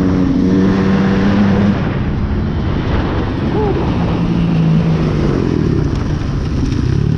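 Dirt bike engine running hard at speed on a dirt track, its note coming and going over a heavy rush of wind.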